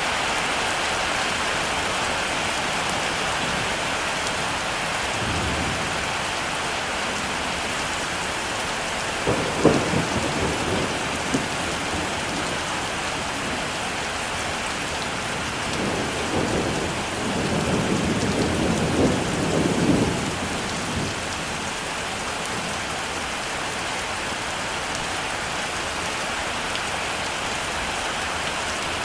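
Heavy rain falling steadily, with thunder: a sharp crack and short rumble about ten seconds in, and a longer rolling rumble about sixteen to twenty seconds in.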